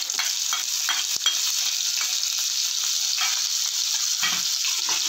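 Sliced onions frying in hot oil and ghee in a kadai: a steady sizzle with many small crackles.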